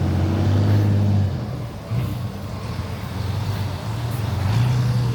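Road traffic: motor vehicles passing close by, a low engine drone that fades about a second in and builds again near the end. The tornado siren is silent.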